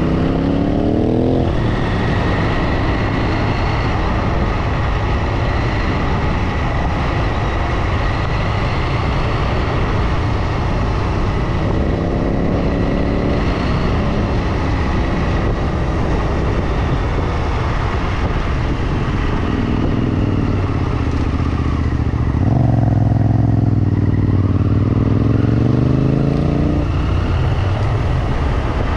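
Motorcycle engine running under way over steady wind noise. Its pitch climbs and drops several times with the throttle, loudest in a longer pull near the end.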